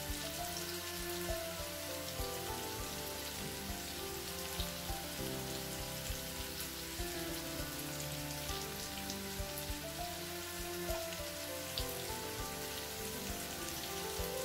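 Oil sizzling steadily in a frying pan around masala-coated halved boiled eggs, with scattered sharp crackles and pops, frying on a low flame.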